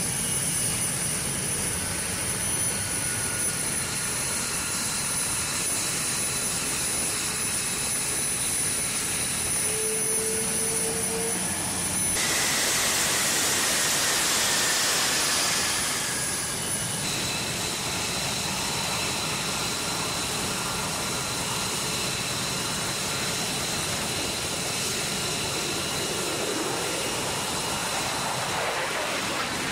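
F-22 Raptor jet engines (Pratt & Whitney F119 turbofans) running at low ground power on the flight line: a steady rushing noise with a high-pitched whine over it. About twelve seconds in the sound jumps louder and brighter, and about seventeen seconds in it drops back.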